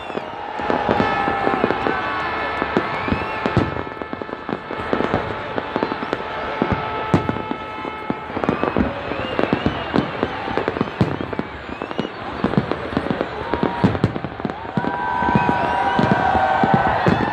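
Aerial fireworks display, shells bursting in quick succession with many sharp bangs and crackles throughout.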